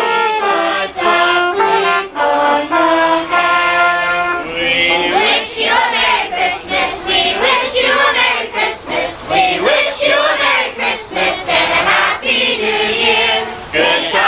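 Trumpets play a phrase of steady, held notes for the first four seconds or so. Then a large group of Christmas carolers, children among them, sings a carol together.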